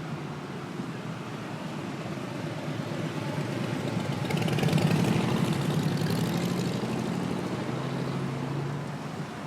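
A motor vehicle's engine passing close by in street traffic, growing louder to a peak about halfway through and then fading, over a steady hiss of traffic.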